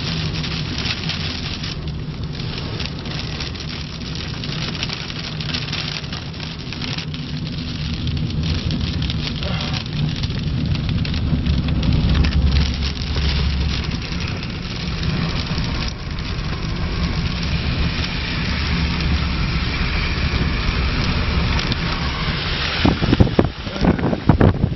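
Car cabin noise while driving in rain: steady engine and road rumble with rain pattering on the car. About a second before the end, loud gusts of wind begin buffeting the microphone.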